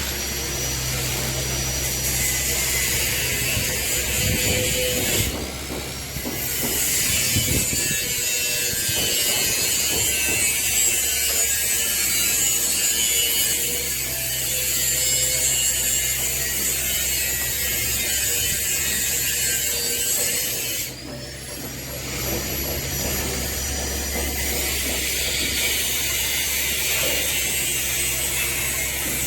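Hydraulic excavator working: a steady engine drone under a dense high hiss, which drops out briefly twice.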